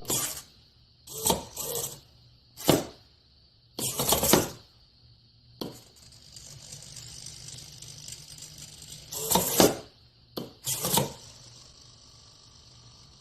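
A series of short clattering knocks and clinks, about eight of them at irregular spacing, with a faint steady hiss between them.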